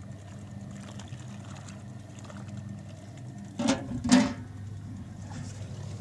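1968 Tula-2 washing machine running a wash, its electric motor humming steadily as the activator churns the foamy water. Two short loud knocks or bumps come a little past halfway.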